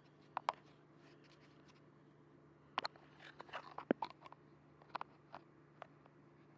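Scattered light clicks and knocks of small hard parts being handled, with a few sharper ones, over a steady low hum.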